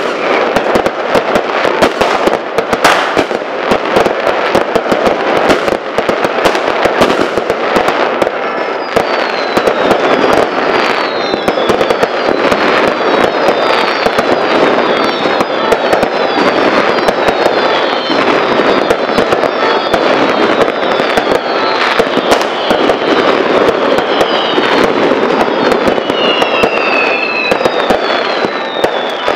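Fireworks going off in a dense, continuous barrage of bangs and crackling. From about eight seconds in, many short falling whistles sound over the bangs.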